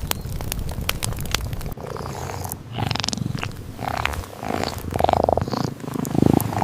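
A cat purring, a steady low rumble, with short higher-pitched sounds over it in the second half.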